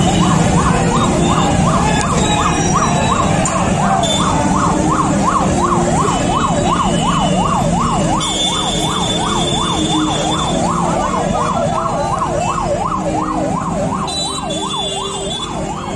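Electronic siren yelping, its pitch swinging rapidly up and down about three times a second, slowly fading toward the end, over the steady hubbub of a large crowd.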